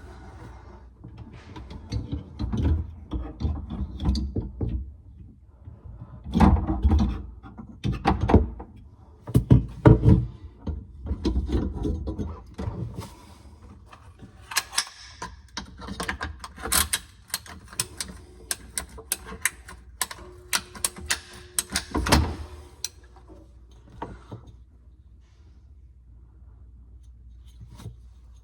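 A series of irregular knocks, clunks and clicks, like objects being handled and set down. A fast run of sharp clicks fills the middle, and it all dies away a few seconds before the end.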